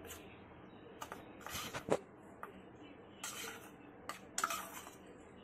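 A steel spoon scrapes gram flour out of a small steel bowl into a larger steel bowl. It makes a few short scrapes and light metal clicks.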